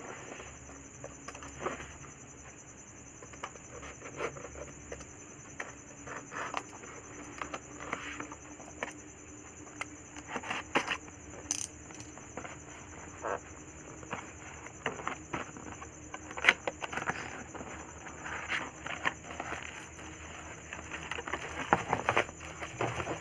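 Tape being pulled off and a keyboard's cardboard box and plastic wrapping being opened and handled: scattered rustles, crinkles and light knocks.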